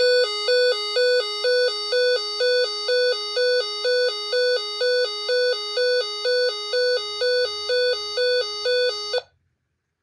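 Handheld First Alert weather alert radio sounding its built-in alert alarm: a loud electronic two-tone warble, alternating between two pitches about twice a second. It cuts off suddenly about nine seconds in.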